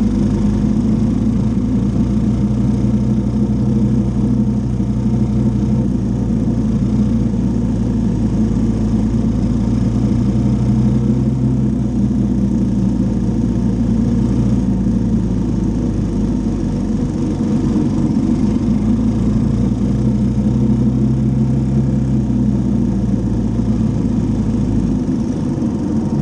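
Three-wheeler ATV engine running steadily while the trike rides along a gravel road, heard up close from the machine itself, with small rises and dips in engine pitch.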